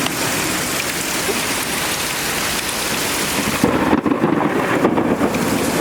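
Heavy rain pouring in a thunderstorm, a steady loud hiss. A little over halfway through, the hiss thins and a deeper rumble of thunder rises.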